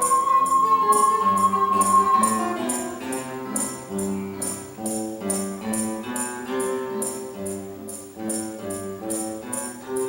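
Tone chime ensemble playing: ringing aluminium chimes sounding a melody over lower sustained notes, with a jingling percussion instrument keeping a steady beat of about three strokes a second.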